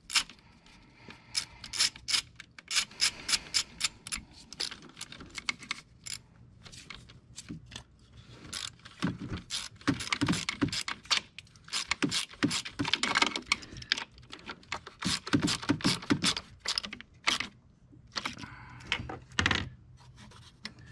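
Hand socket ratchet clicking in runs as it turns a spark plug deep in the plug well of a Ford 5.4L Triton V8, with metallic clinks and scrapes of the socket and extension.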